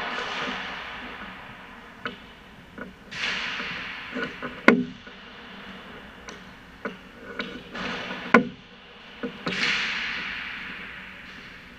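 Hockey sticks and pucks on an indoor ice rink: two loud sharp cracks of shots, about four and eight seconds in, with several lighter stick taps between. Skate blades scraping the ice make a hiss that swells and fades three times.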